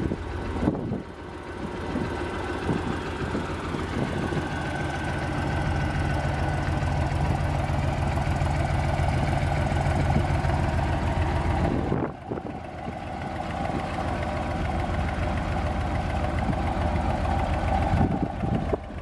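A vehicle engine idling steadily, a low even hum that drops out briefly about twelve seconds in.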